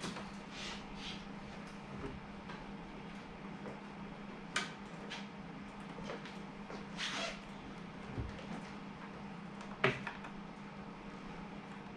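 Clicks and light knocks of green 3D-printed plastic enclosure parts being handled and snapped together, with a few sharper clicks a couple of seconds apart, over a steady low hum.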